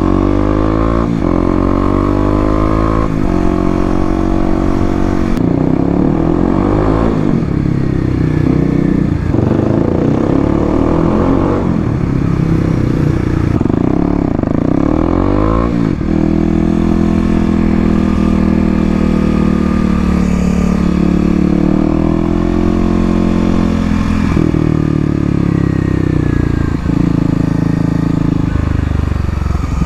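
2018 Kawasaki KLX250's fuel-injected single-cylinder four-stroke engine running through an FMF Q4 aftermarket exhaust. It rises in pitch and drops back again and again in the first half, like revs climbing through the gears, then runs steadier with slow swells in engine speed.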